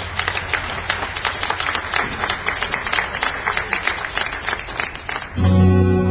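Indoor drumline percussion playing a busy passage of rapid, irregular strikes over a low held tone. About five seconds in, a loud sustained low chord from the front ensemble cuts in suddenly.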